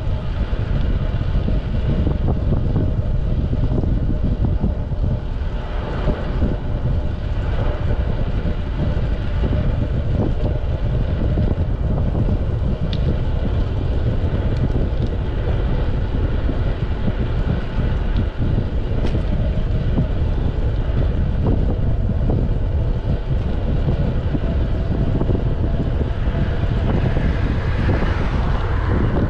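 Steady wind rushing and buffeting over the microphone of a camera riding along on a bicycle, with a constant low rumble underneath.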